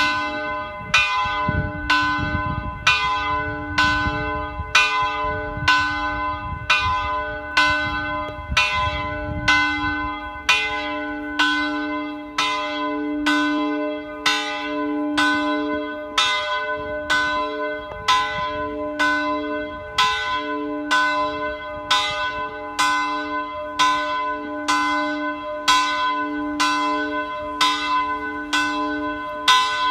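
Church bell ringing, struck about once a second, each stroke's tone ringing on into the next.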